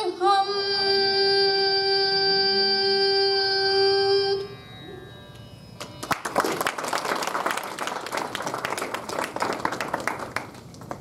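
A woman's voice holds one long final note of a song, sliding up into it at the start and stopping about four seconds in. After a short pause, the audience applauds for about four and a half seconds.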